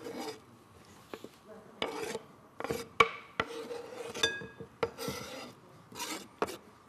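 Chef's knife blade scraping chopped green onions across a wooden cutting board into a glass bowl, in irregular short rasping strokes, with a sharp knock about three seconds in.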